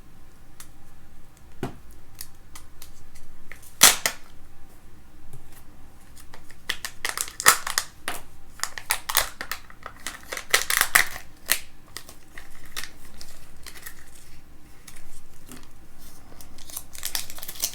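Kinder Joy egg being opened by hand: a series of sharp clicks and snaps of the plastic egg shell and toy capsule, with crackling of the wrapping. The loudest snap comes about four seconds in, and there is a busy stretch of snapping and crackling in the middle.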